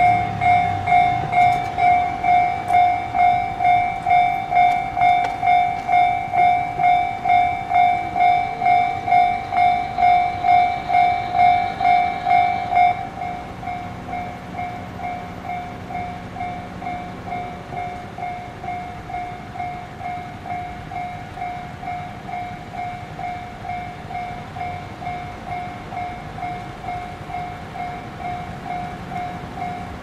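Japanese railroad level-crossing warning bell ringing in a steady pattern of about two dings a second. About 13 seconds in, it drops to a quieter, duller ring and keeps going.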